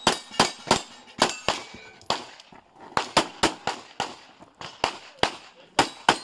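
Pistol shots fired in quick pairs and threes, about fifteen in all, with short pauses between strings as the shooter moves between firing positions in a practical shooting stage.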